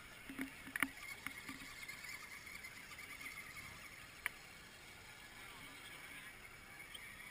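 Small electric radio-controlled scale 4x4 trucks driving through wet mud and slush: a steady high motor-and-gear whine with wet splashing from the tyres. A few sharp clicks and knocks in the first second and a half, the loudest just under a second in, and one more at about four seconds.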